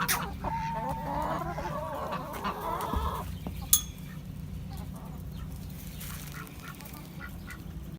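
Chickens clucking for about three seconds, then a single sharp click.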